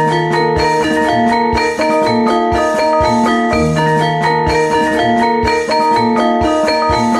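Music of tuned mallet percussion: struck, ringing notes in a repeating figure at a steady level, with a low note that comes back about every three and a half seconds.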